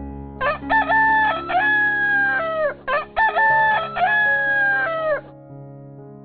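Rooster crowing twice, two long cock-a-doodle-doo calls each ending in a falling tail, over soft background music.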